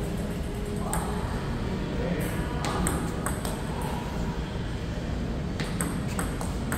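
Table tennis ball hit back and forth: sharp pings of the celluloid-type plastic ball off rubber-faced paddles and off the table top, in two quick clusters with a pause between, over a steady low hall hum.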